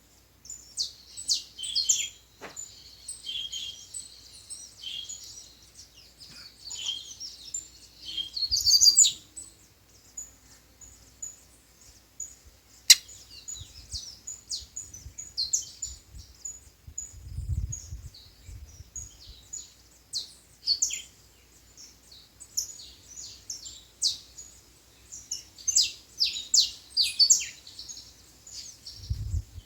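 Double-collared seedeaters (papa-capim) chirping and singing in quick high chirps and short trills. A sharp click comes about 13 s in, and brief low rumbles come around 17 s and near the end.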